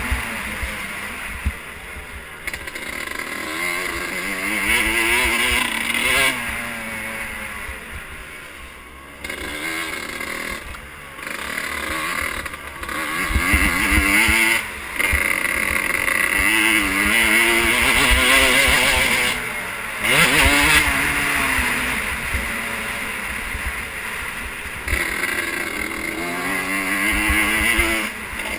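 Motocross dirt bike engine heard from the bike itself, revving up and falling back again and again as the rider accelerates, shifts and backs off along the track.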